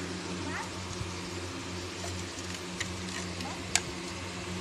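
Steady low hum, with a few sharp clicks of a metal slotted spoon against the biryani pot. The loudest click comes near the end.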